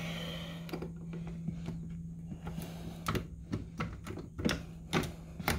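Clicks and knocks of an exterior door being handled and opened, starting about three seconds in, over a steady low hum.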